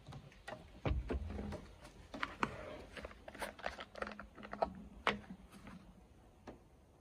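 Irregular light knocks and clicks of someone moving about on wooden deck boards in sandals and setting a bottle down on a wooden tabletop, with a heavier knock about a second in and a sharp click just after 5 s.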